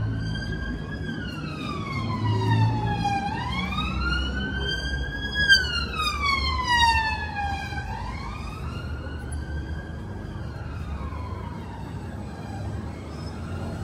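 Emergency vehicle siren wailing, its pitch sliding slowly up and down about three times, over the low rumble of street traffic.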